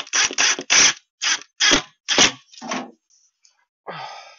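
Quick, rasping back-and-forth strokes, about three a second, that stop about three seconds in; one longer scrape follows near the end.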